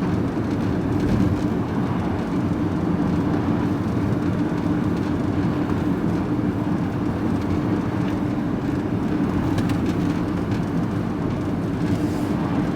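Steady engine and road noise inside a moving van's cab: an even drone with a constant low hum.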